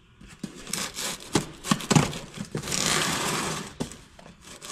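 Packing tape being peeled and torn off a cardboard box, among scrapes and taps of cardboard being handled, with one longer rip about three seconds in.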